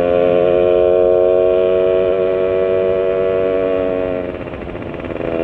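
Motorcycle engine, a Yamaha Sigma engine with a UMA 30 mm carburettor and frog-type ('kodok') manifold, held at steady high revs while riding, then easing off about four seconds in. The rider judges the mixture 'a bit too dry', slightly lean.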